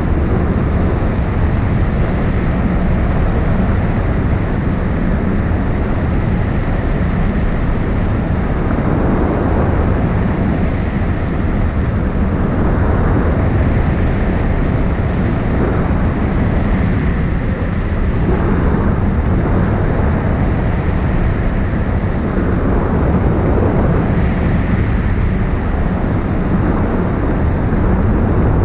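Airflow from hang glider flight rushing over a wing-mounted camera's microphone: a loud, steady wind rumble heaviest in the low end.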